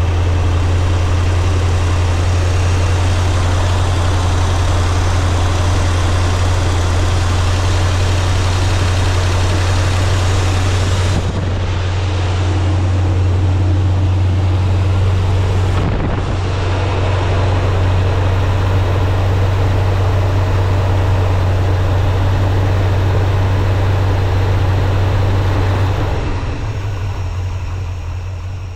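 Chevrolet Caprice engine idling on a Quick Fuel Slayer 650 vacuum-secondary carburetor with a freshly replaced power valve, run to check for fuel leaks. A steady low drone with two brief dips partway through, dying away near the end.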